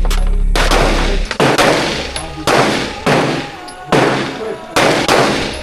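Handgun shots fired one after another at a quick, uneven pace, about eight in all, each with a short ring-out.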